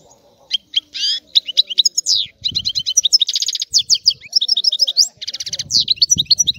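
European goldfinch singing a fast, twittering song of quick chirps and trills, in the style Greek keepers call stragalino; it starts about half a second in and runs on without a break.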